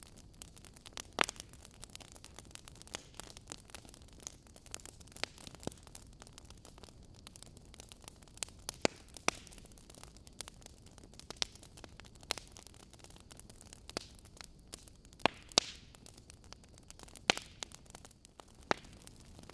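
Logs burning in a fireplace, crackling with irregular sharp pops and snaps over a soft steady hiss; a handful of pops stand out much louder than the rest.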